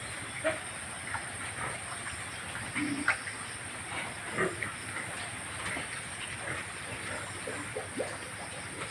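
Pigs grunting and giving short squeals, scattered brief calls over a steady high hiss.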